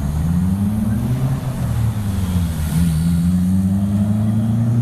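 Small RC helicopter's rotor and electric motor running in flight, a low hum whose pitch rises, dips about two seconds in, then climbs again and holds as the throttle and blade pitch change.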